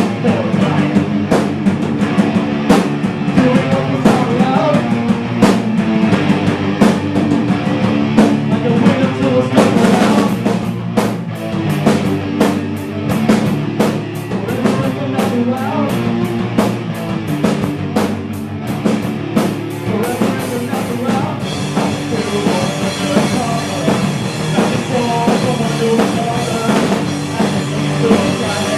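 Rock band playing an instrumental stretch of a song, the drum kit keeping a steady beat of kick and snare hits under bass and other pitched instruments, with no singing.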